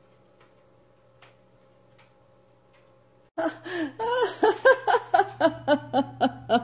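A few faint, scattered ticks, then about three seconds in a sudden run of short, pitched gasping laughs, about three a second, each rising and falling in pitch.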